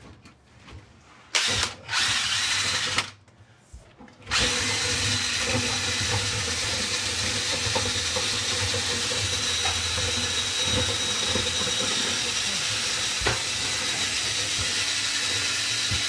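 Cordless drill spinning a rotary vent brush on a flexible rod inside a rigid galvanized metal dryer vent pipe. It starts in a short burst, runs for about a second, stops, then runs steadily from about four seconds in. The brush rattles around on the metal pipe rather than sounding muffled, which the worker takes as the sign that the vent is pretty clean.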